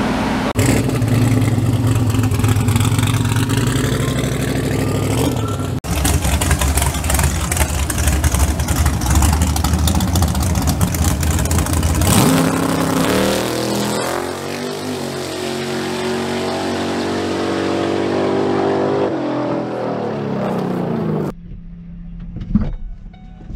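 Drag-race pickup truck engines running hard, loud and steady, with abrupt breaks between stretches. From about halfway the engine pulls up steadily through its revs as it launches down the strip. Near the end the sound drops to a quieter, muffled stretch with a single thump.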